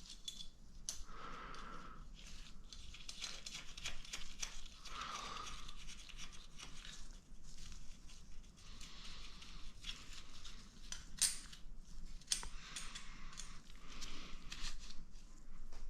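Faint scraping and rustling with scattered light clicks, as of hands handling and shifting small engine parts.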